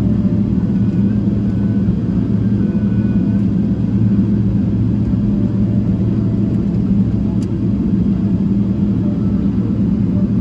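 Cabin noise of a Boeing 777-300ER taxiing: the idling GE90 engines make a steady low drone over the rumble of the wheels rolling on the taxiway.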